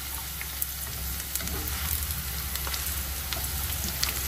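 Tempe strips, shallots and garlic sizzling in oil in a nonstick wok while a spatula stirs them, with a few light taps and scrapes of the spatula against the pan.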